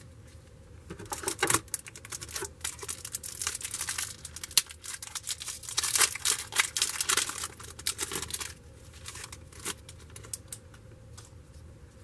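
Trading cards being handled by hand, a dense run of crackling clicks and rustles that thins out after about eight seconds.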